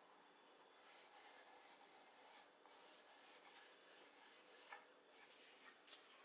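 Faint repeated rubbing strokes of a cloth pad working shellac button polish across a mahogany box's wooden surface.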